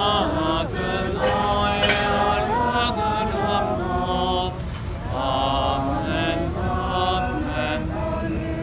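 A crowd of people singing a hymn together in the open air, many voices holding long, slow notes.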